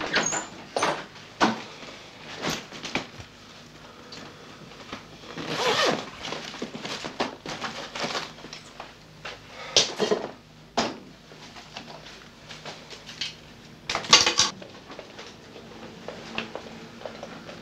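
Scattered handling noises: clicks, rustles and knocks of a leather travel bag being opened and unpacked on a bed, with a few louder scrapes and knocks spread through.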